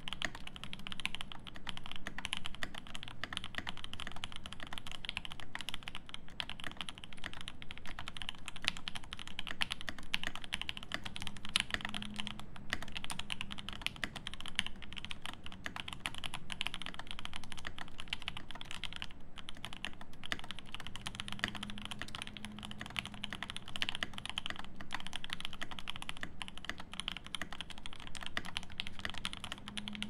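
Continuous typing on a Time RE mechanical keyboard: lubed OP Black switches in an aluminium plate, GMK doubleshot ABS keycaps and lubed stabilizers. A steady stream of keystrokes with a couple of short pauses.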